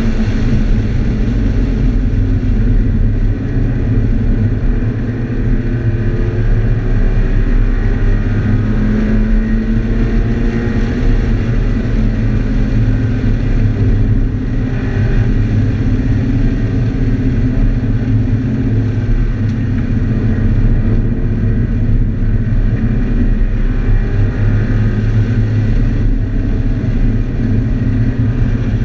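A 2013 Scion FR-S's 2.0-litre flat-four boxer engine, heard from inside the cabin while driving hard at track speed, its note rising and falling with the revs through the corners.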